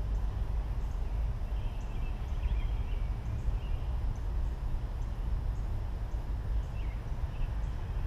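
Steady low rumble of outdoor background noise, with faint bird chirps in the distance a couple of seconds in and again near the end.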